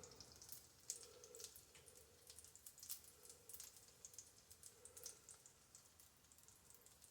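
Faint, scattered little ticks and pops of pancake batter frying in shallow grease on a black iron skillet, heard over quiet room tone.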